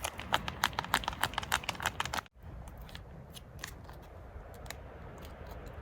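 Crinkly foil food pouch being handled and torn open: dense crackling for about two seconds, then scattered crinkles.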